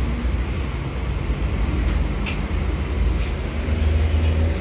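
Steady low rumble of running machinery, with a few faint light clicks.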